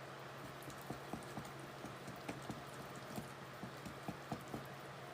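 Faint, irregular soft taps and clinks of a utensil working cake batter in a mixing bowl, about two a second, over a low steady hum.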